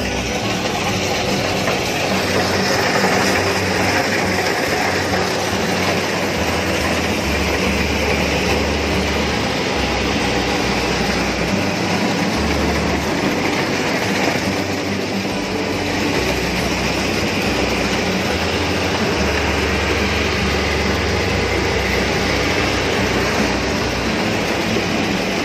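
Rice combine harvester running under load as it cuts standing rice: a loud, steady mechanical clatter over the engine's drone, heard close up from the operator's platform.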